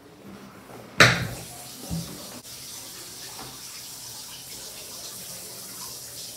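A sharp bang about a second in, then a smaller thump, then a tap running steadily into a washbasin.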